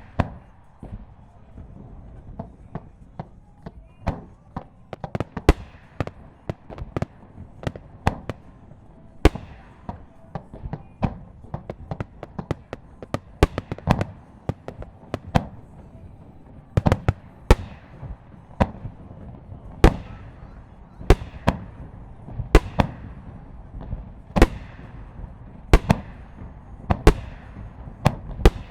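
Aerial firework shells bursting in rapid, irregular succession. Sharp booms come roughly one to two a second, many trailed by a fading crackle, over a continuous rumble of more distant bursts.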